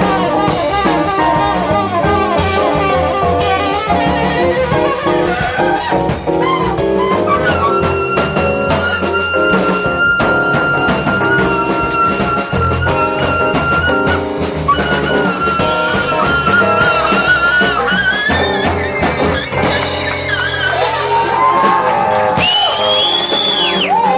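Live jazz quartet playing, with a lead horn over the rhythm section. About a third of the way in, the horn holds one long high note for several seconds. Near the end it bends and climbs in pitch.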